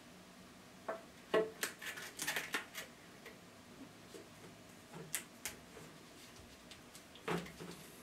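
Plastic handling noise as a cut flap of firm plastic is pressed into place on a plastic pipe: a close run of crackles and clicks early on, then a few scattered clicks.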